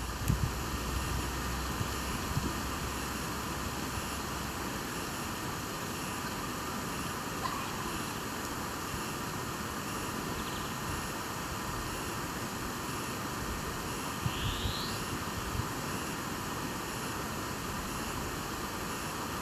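Steady, even hiss of outdoor nature ambience, with a low rumble that fades out after the first few seconds. About fourteen seconds in comes one short rising chirp.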